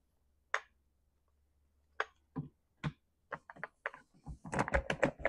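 Hard plastic clicks and knocks as the top cover of a Stihl MS500i chainsaw is handled and seated back over its air filter. A few single clicks come first, then a quicker run of clatter near the end.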